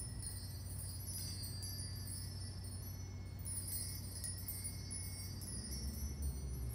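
Small metal chimes tinkling: many high ringing notes starting one after another and overlapping, over a steady low hum.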